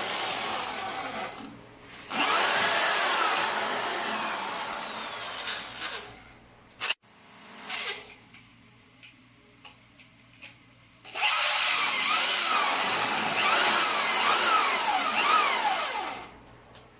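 Electric drill running in three long bursts with pauses and a few small clicks between, its motor pitch wavering up and down as it bores.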